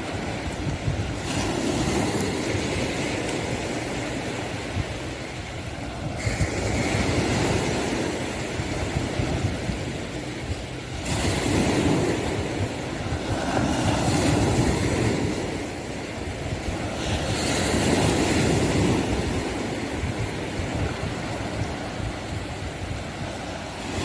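Sea waves washing onto the beach, swelling and fading every few seconds, with wind buffeting the phone's microphone.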